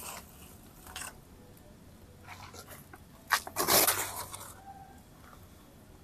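Short rustling and crunching of paper kindling and dry coconut shells being handled while a small fire is being lit, the loudest stretch about three and a half seconds in.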